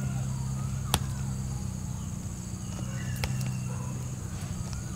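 Metal spoon dabbing margarine onto potato pieces in a foil tray, with two light clicks about a second and three seconds in, over a steady low hum.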